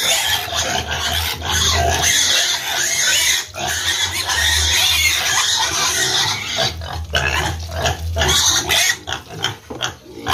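Pigs in a pen calling loudly and almost without pause, with water running from a garden hose into a metal basin of feed mash.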